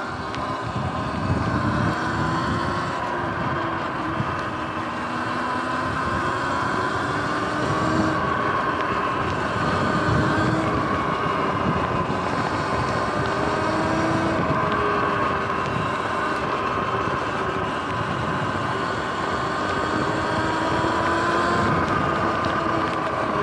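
Sur-Ron electric dirt bike under way: the whine of its electric motor and drivetrain rises and falls in pitch as the speed changes. Under it runs a steady rush of wind noise on the microphone.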